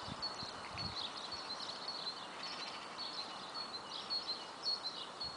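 Small songbirds chirping over a steady background hum, in many short, quick notes repeated throughout.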